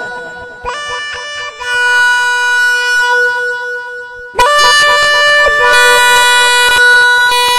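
Music of long held notes on a reedy wind instrument, the pitch changing in steps, with a louder, fuller chord coming in a little past halfway.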